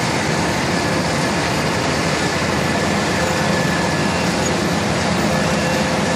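Label press running: a steady mechanical drone and hiss with a faint, steady high whine.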